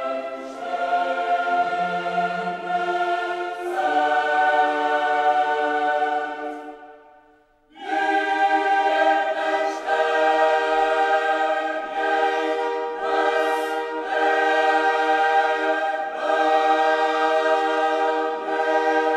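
Background music: a choir singing held chords. It fades out about seven seconds in and starts again a second later.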